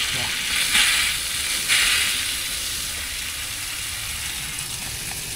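Hot water running out of an Aquor hot-and-cold wall hydrant through its quick-connect hose connector, a steady hiss with two brief louder surges about one and two seconds in.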